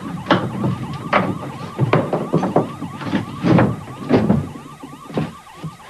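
Police car siren in a rapid yelp, rising and falling several times a second, with heavy thuds about once a second over it.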